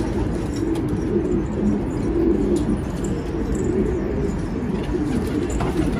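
A flock of domestic pigeons cooing, many overlapping coos forming a continuous low murmur.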